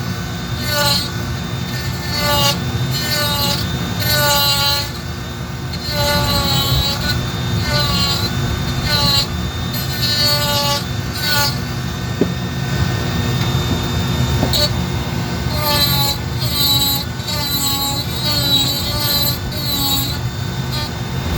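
Dremel rotary tool grinding and carving wood. The motor whine sags in pitch and recovers about once a second as the bit is pressed in and lifted, stroke after stroke.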